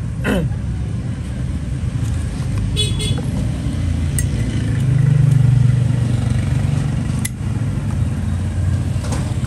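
Street traffic running steadily, with a brief high-pitched horn toot about three seconds in and a louder vehicle passing around the middle. A few sharp clicks stand out over the traffic.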